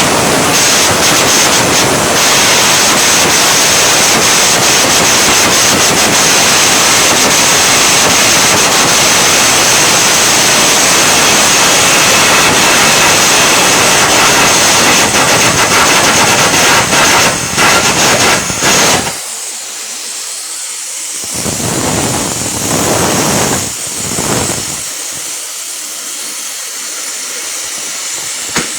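Electric arc welding: the arc crackles and hisses steadily, cuts out about two-thirds of the way through, sputters briefly twice, and starts again right at the end.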